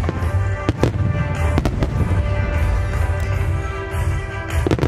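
Aerial firework shells bursting in sharp bangs, in close pairs about a second in, near two seconds, and again near the end, over a song playing throughout.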